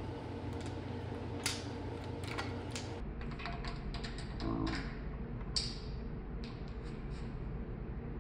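Light metal clicks and taps of VTEC rocker arms being handled and fitted by hand on an engine's cylinder head, irregular, with two sharper clicks about a second and a half and five and a half seconds in.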